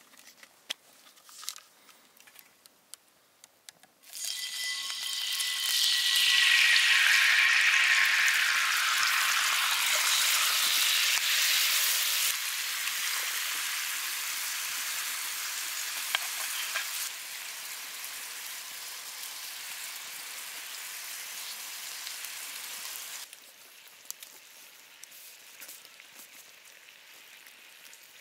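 Food hitting a hot pan and sizzling loudly about four seconds in, with a brief whistle of steam at first, after a few light clicks and crinkles of packaging. The sizzling then eases down in steps.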